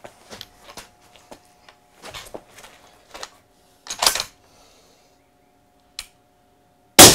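Rifle handling: small clicks, knocks and rattles as a suppressed precision rifle is set onto a barricade and brought into position, with a sharp click about six seconds in. Just before the end, a single loud rifle shot rings out with a long echo, fired on a shot timer.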